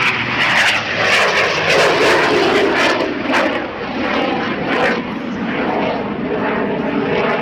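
Jet-assisted Waco biplane in flight, its piston engine and turbojet running together in a loud, steady engine noise.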